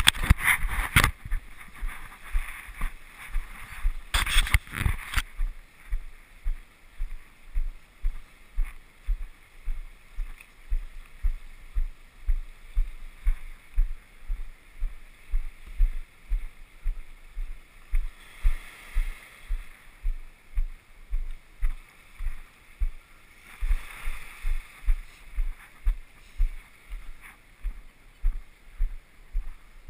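Footsteps of a person walking on a wooden boardwalk, low thuds about twice a second, with the sea washing over shoreline rocks in a hissing wash that swells at the start and twice more later on.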